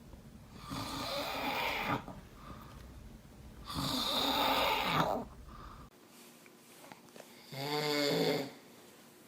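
A man snoring: two long, noisy snores about three seconds apart, then a shorter snore with a buzzing pitched tone near the end.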